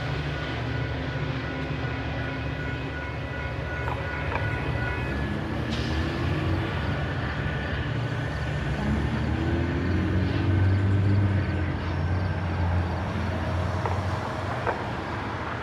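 Metra F40PH-3 diesel-electric locomotive (EMD 645 two-stroke V16) working hard as it pushes a commuter train out of the station, a deep steady engine drone. The engine notches up and rises in pitch twice, about six seconds in and again around nine to eleven seconds, where it is loudest.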